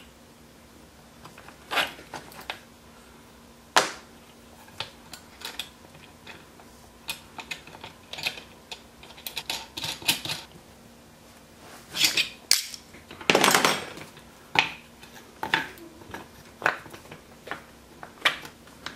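Parts of a wooden bar clamp being handled and fitted together: irregular light knocks and clicks of plywood pieces and a threaded steel rod, with a couple of longer scrapes about two-thirds of the way through.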